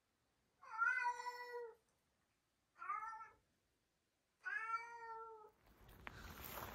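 Korean shorthair cat meowing three times, long, short, then long, calling out as it searches the flat for its absent people. Near the end a steady rustling hiss with faint crackles takes over.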